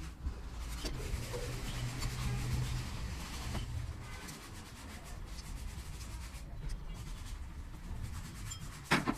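Hand tools and metal engine parts being worked: rubbing and scraping with scattered clicks, and one sharp knock just before the end.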